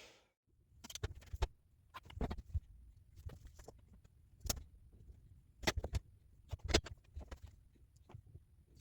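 Irregular clicks and knocks of small objects being handled and set down on a workbench.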